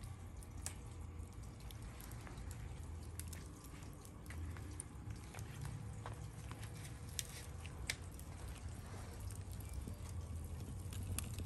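Wood fire crackling in a steel fire pit, with scattered sharp pops over a low steady rumble.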